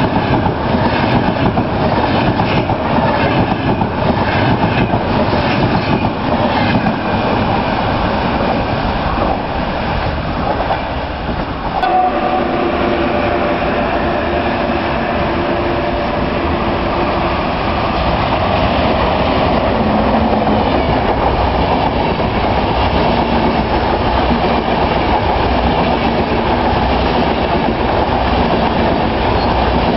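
A Frecciargento high-speed train passing at speed, its wheels clacking rapidly over the rail joints. About twelve seconds in the sound changes abruptly to an electric locomotive-hauled Intercity train, which runs past with a steady rumble and wheel clatter.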